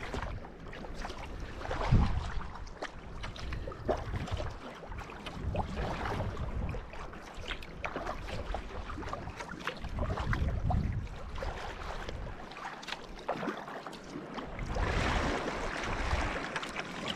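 Paddle strokes splashing and water slapping against the hull of a Big Pond Kayaks Mannta sea kayak in choppy sea, with irregular gusts of wind rumbling on the microphone and a louder wash of water about fifteen seconds in.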